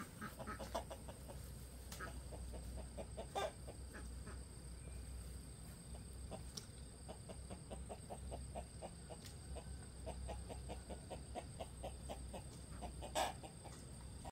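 Chickens clucking in runs of short, quick clucks, about three or four a second, with a couple of louder clucks.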